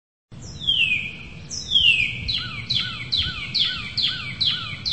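A bird singing: two long downward-sliding whistles, then a quick run of short downward-sliding notes repeated about two a second, over a low background rumble.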